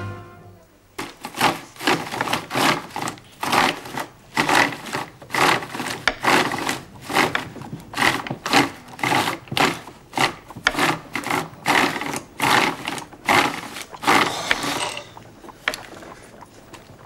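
A knife slicing a cucumber on a wooden chopping board, sharp cuts about two a second. They stop near the end, where the quieter gear clatter of a hand-cranked wooden-tub ice cream freezer being turned begins.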